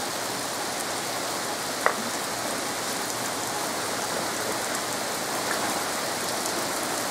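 Steady rain falling and splashing on a flooded street, with one short knock a little under two seconds in.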